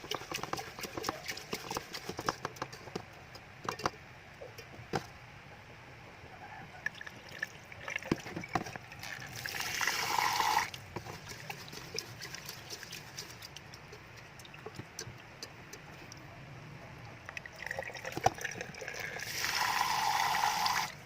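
Water running or pouring in two short spells of about a second and a half each, with light clicks and knocks of handling in between.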